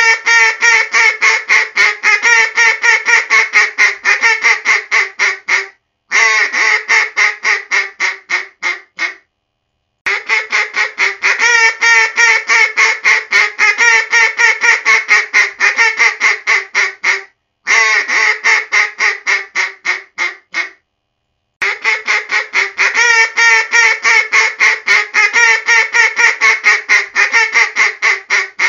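Mallard comeback call: fast strings of loud duck quacks, about five a second. The strings come in repeating sequences: a long run of several seconds, a brief break, then a shorter run that trails off and fades, followed by about a second of silence before the next sequence.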